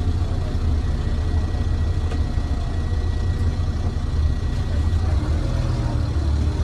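Inside a 2005 MAN 15.220 bus with a Custom Coaches CB30 body on the move: steady low engine rumble with road noise, and a faint steady high tone over it.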